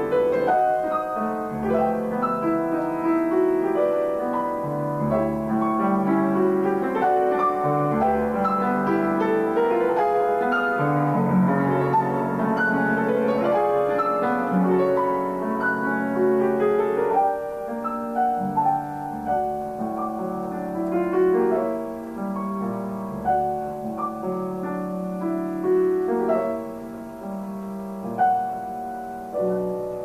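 Grand piano played solo in a classical piece, with fast, dense runs of notes in both hands. The playing turns softer a little over halfway through, with a few louder accents after that.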